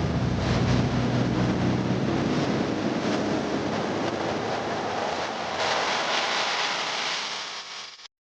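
A steady rushing noise like wind or surf, with a low hum under it at first that fades away. The rushing swells brighter about five and a half seconds in, then fades out shortly before the end.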